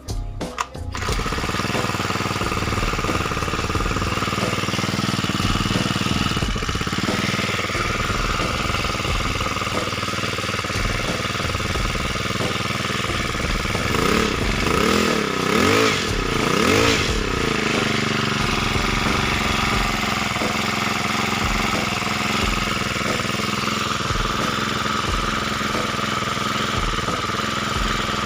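Small four-stroke engine of a 1-inch portable water pump (Yamamax Pro WB10XT) running steadily, revved up and down a few times about halfway through.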